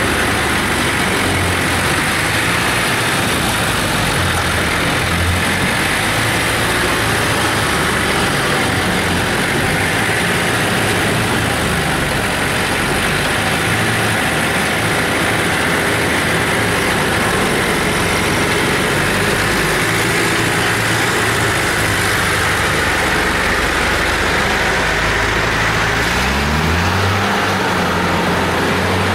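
Bautz T600 combine harvester's engine running steadily as the machine drives along, with a dense mechanical clatter over the engine note. Near the end the engine speed rises and holds higher.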